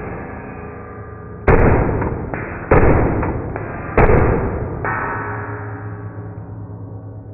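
9mm AR-15 carbine firing rapidly, heard slowed down: three shots and a weaker fourth, each a deep, drawn-out boom that fades away slowly with a low ringing tail.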